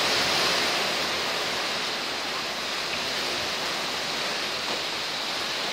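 Strong sustained wind rushing through trees ahead of a hurricane, a steady hiss that eases slightly after the first second.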